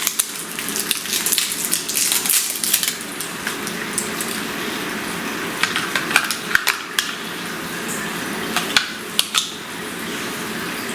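AA batteries and the plastic battery compartment of a toy RC remote control being handled as the batteries are fitted: scattered sharp clicks and light clinks over a steady background noise.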